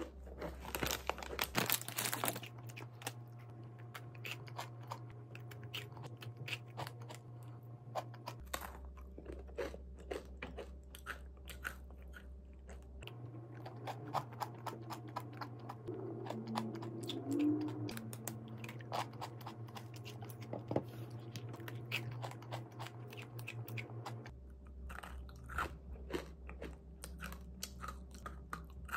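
A person biting and chewing a crisp, crumbly cookie close to the microphone: a dense run of small crunches and chewing sounds, with a louder burst about two seconds in.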